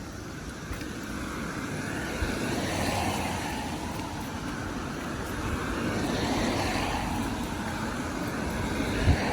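Strong typhoon wind blowing in gusts: a rushing noise that swells about three seconds in and again around six to seven seconds, with a low rumble of wind on the microphone and a brief thump just before the end.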